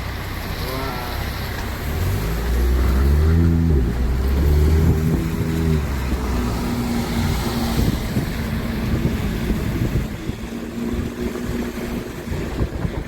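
Vehicle engine running in street traffic, loudest from about two to six seconds in, then a steady low hum.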